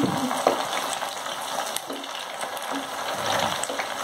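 Chicken kebab pieces sizzling steadily as they deep-fry in hot oil in a pan, with a few light scrapes and taps of a metal slotted spatula as the pieces are turned.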